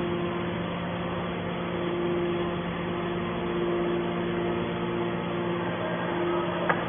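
Hydraulic can baler's motor and pump running with a steady hum, with a single sharp click near the end.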